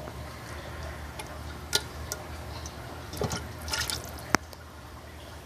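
A few light clicks and taps from handling a metal pot and a lump of congealed burger fat, with a short cluster of them about three and a half seconds in and one sharp ringing click just past four seconds, over a steady low hum.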